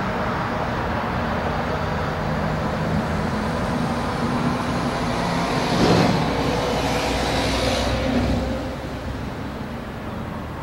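Steady engine drone with faint low hum tones, swelling to its loudest about six seconds in and easing off after about eight seconds.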